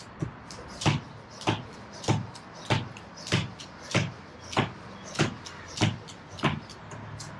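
Beaded jump rope turning double unders, its plastic beads clacking on the tile floor with each jump along with the landing of the shoes. About eleven sharp, even strikes, a little over half a second apart.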